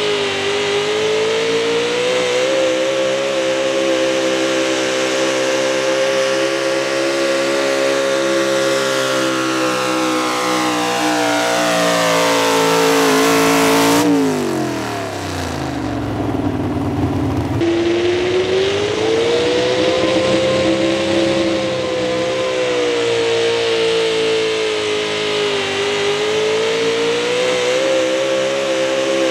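Chevy small-block V8 of a 4x4 street truck running under full load while pulling a weighted sled, its note held high and steady with the pitch wavering. About halfway through it drops sharply in pitch for a couple of seconds, then climbs back to the steady high note.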